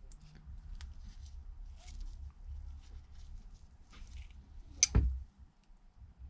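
Small clicks and soft scraping from handling a smartphone and its parts with hand tools on a workbench, with one sharp, loud click a little under five seconds in.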